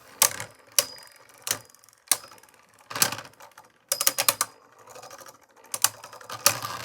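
Beyblade spinning tops clashing in a plastic stadium: sharp clacks at irregular intervals, some with a short metallic ring, and a quick flurry of hits about four seconds in.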